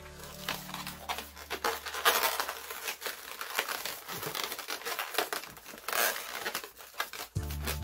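Gold 260 latex modelling balloon rubbing and scraping against hands as it is twisted and looped, a rapid, irregular run of short scratchy rubs. Background music comes back in near the end.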